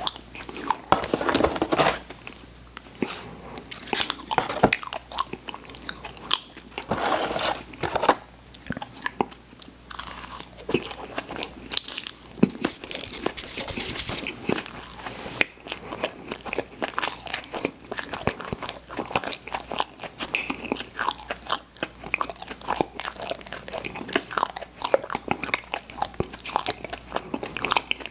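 Close-miked eating sounds of sweets being bitten and chewed: dense wet clicks and smacks with crunchy bites in between.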